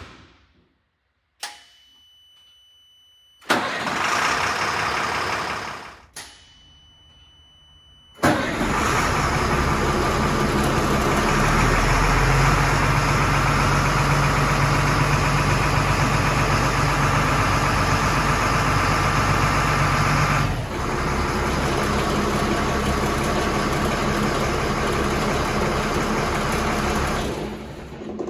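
Stewart & Stevenson LMTV military truck's diesel engine being cold-started. A steady high warning tone sounds twice with a rushing noise between, then the engine catches about eight seconds in and runs at a loud, steady idle until near the end.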